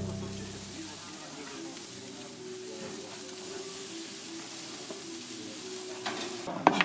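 Thick beef steaks sizzling on a charcoal grill grate, a steady hiss as the meat sears. A few sharp clicks near the end from metal tongs on the steaks and grate.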